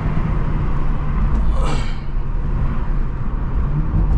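BMW M340i's turbocharged B58 inline-six, stage 2 tuned with a catless downpipe, running at a steady cruise: a low, even drone heard from inside the cabin. A brief higher noise comes about a second and a half in.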